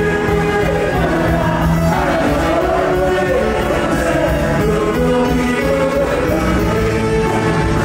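Live band music led by a section of saxophones, baritone and alto among them, playing an Andean song at a steady, loud level.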